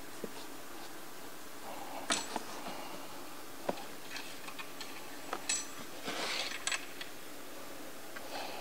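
Scattered light clicks and taps of hose ends and plastic fittings being handled, with a short scraping rustle about six seconds in, as coolant hoses are worked off their pipes by hand. A steady background hiss runs underneath.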